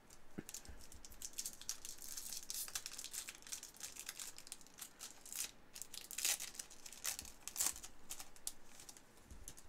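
A trading-card pack's wrapper being torn open and crinkled in the hands: a dense run of sharp crackles and rips, with the loudest ones a little past the middle.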